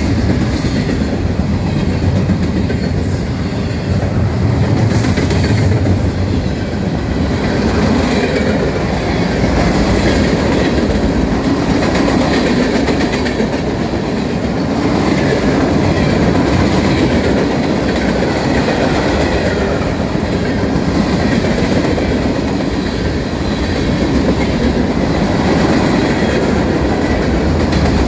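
Freight cars of a mixed freight train rolling past at speed: a steady rumble of steel wheels on rail, with clacking as the wheels cross the rail joints.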